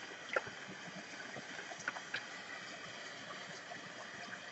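Tarot deck being shuffled by hand: faint rustle of the cards sliding against each other, with a few soft clicks.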